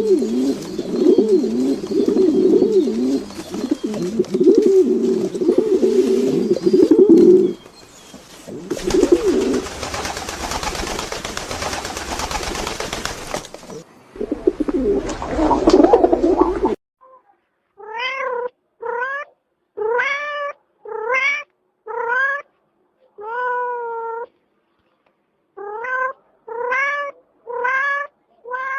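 A cat meowing over and over in the second half: about a dozen short, clear meows, roughly one a second. Before that comes a loud, dense jumble of other lower-pitched sounds, then a noisier stretch.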